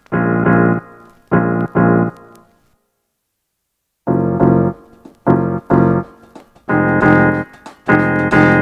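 Background music on a piano-like keyboard: chords struck in short rhythmic groups. The music breaks off into a second or so of complete silence about three seconds in, then starts again.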